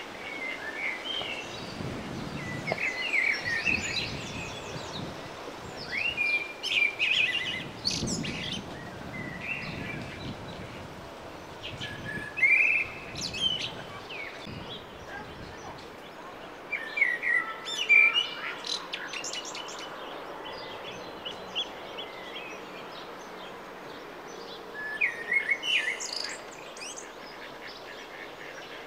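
Mallard ducklings peeping in short high bursts every few seconds.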